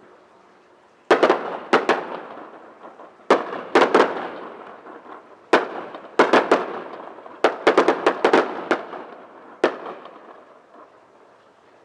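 Fireworks shells bursting: sharp bangs, singly and in quick clusters of two to five, each followed by a rolling echo that dies away. The bangs come thickest around the middle; the last one falls about ten seconds in and its echo fades out.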